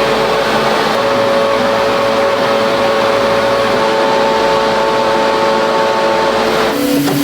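Factory production machinery for car cabin air filters running steadily, a loud dense noise with several steady whining tones. Near the end it switches abruptly to a different machine with a lower hum.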